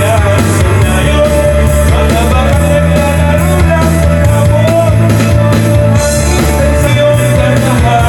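A rock song with a singing voice, guitar and drums, playing loud with a steady beat and a heavy bass line, through the Mediacom MCI 727 Bluetooth party speaker during its sound test.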